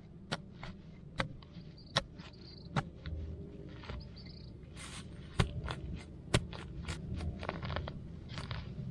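Hand digging knife stabbing and cutting into grassy turf and soil: irregular sharp snaps and clicks of blade and roots, with a longer scrape about five seconds in as a plug of earth is dug out.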